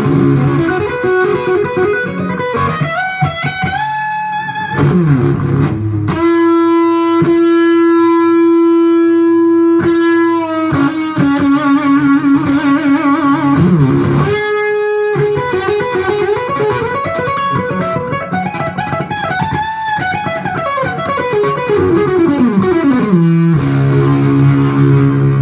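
Electric guitar played through a 1970 Dallas-Arbiter Fuzz Face fuzz pedal with TFK BC108C silicon transistors: a fuzzy lead line of long sustained notes and wide string bends rising and falling, ending on low sustained notes.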